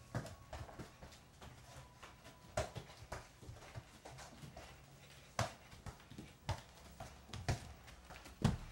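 A football being dribbled with bare feet on a tiled floor: irregular soft thuds of foot on ball and ball on tile, mixed with bare footsteps on the tiles.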